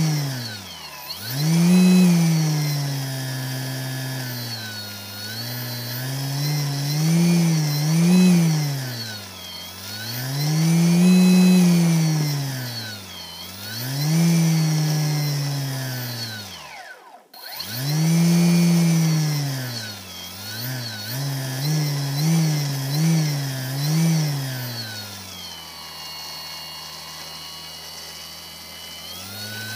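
Brushless outrunner motor driven by a HobbyKing F40A ESC flashed with SimonK firmware, its electric whine rising and falling as the throttle is swept up and down several times. It cuts out briefly a little past halfway, comes back with a few quick blips, then settles to a low steady idle.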